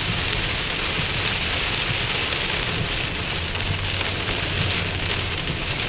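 Heavy wind-driven rain hitting a moving car's roof and windshield, heard inside the cabin as a steady hiss over a low road rumble.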